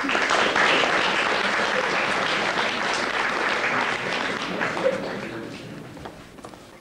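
An audience applauding, dying away over the last couple of seconds.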